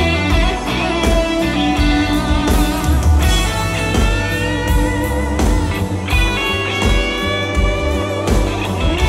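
Live band playing an instrumental passage with no singing: electric guitars lead over a steady beat, with gliding, bent guitar notes.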